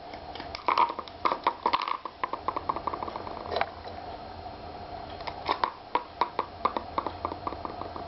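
Budgie playing: an irregular run of sharp clicks and taps in two flurries, one about a second in and one around five to seven seconds, over a steady low hum.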